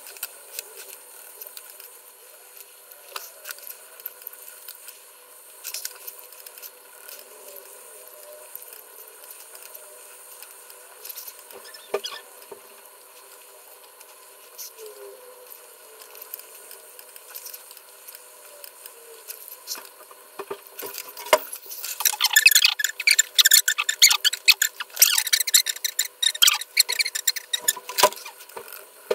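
Colored pencil scratching on paper: scattered light strokes and taps at first, then from about two-thirds of the way in a dense run of quick, loud back-and-forth shading strokes that stops shortly before the end.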